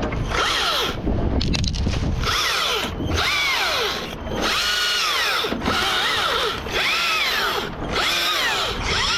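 Husqvarna T542i XP battery chainsaw revved in short repeated bursts, about one a second, its electric motor whine rising and falling in pitch with each trigger pull.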